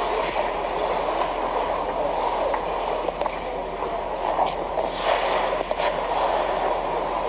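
Figure skate blades gliding and scraping over rink ice as several skaters warm up, in a steady rumbling hall ambience. A few short, sharp scrapes stand out near the middle.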